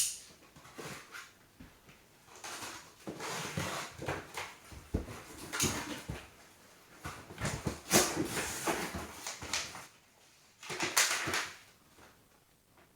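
Cardboard LEGO set boxes being handled and pulled from a packing box: irregular rustling, scraping and a few sharp knocks.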